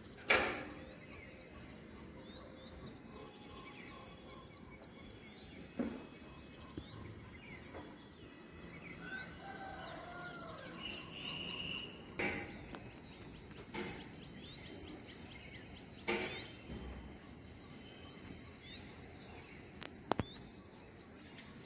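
Small birds chirping and calling, broken by four short loud sounds several seconds apart and two sharp clicks near the end.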